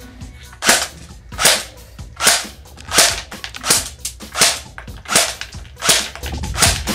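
Airsoft G36C rifle firing single shots, about eight sharp pops evenly spaced roughly three-quarters of a second apart.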